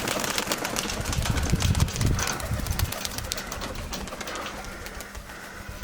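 Domestic pigeons cooing: a run of low coos about one and a half to three seconds in, over a scatter of quick clicks.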